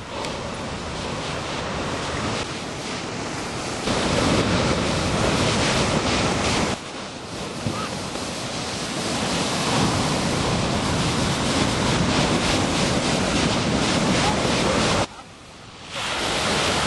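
Ocean surf breaking and washing, with wind buffeting the microphone. The level jumps up abruptly about 4 s in and drops out briefly near the end.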